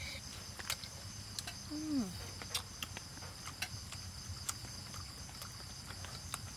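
Steady high chirring of night insects such as crickets, with scattered small clicks and taps of eating at the table. A short falling hum of a voice comes just before two seconds in.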